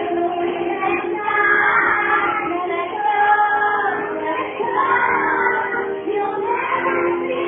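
A woman and a group of young children singing a song together, over music.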